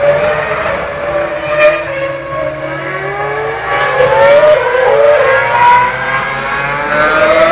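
Formula 1 cars' 2.4-litre V8 engines running at high revs on the circuit, heard at a distance. Several engine notes rise and fall through gear changes, growing louder in the second half as a car approaches.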